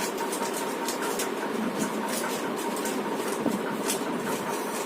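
Rubik's cube being twisted quickly, with an irregular rattle of plastic clicks as the layers turn, over a steady background hiss.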